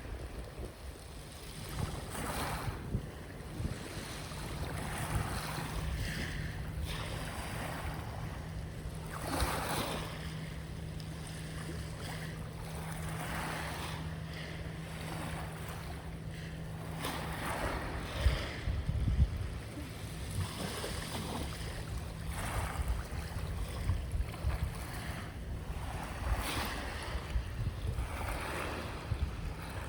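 Ocean waves washing in and drawing back in repeated swells every few seconds, with wind buffeting the microphone. A steady low hum runs underneath for much of the first two-thirds.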